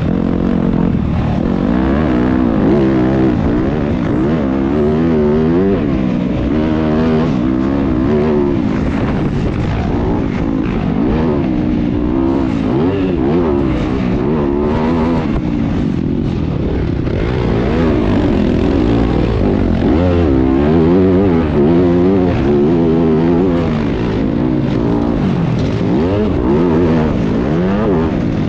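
Several motocross bikes racing on a dirt track, their engines revving up and dropping back again and again, overlapping with one another.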